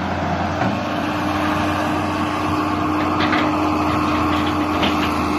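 John Deere 595D wheeled excavator's diesel engine running steadily, with a couple of faint clicks in the second half.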